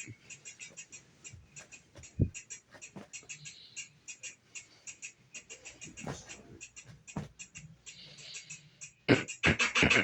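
Rapid, irregular crisp clicks close to the microphone, like the mouth chewing something crunchy. A louder voice-like sound comes near the end.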